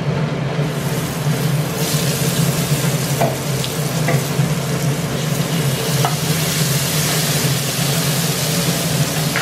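Spice masala frying in a hot pan, sizzling steadily over a low steady hum, with a few light clicks of a utensil stirring. The sizzle grows louder in the first two seconds.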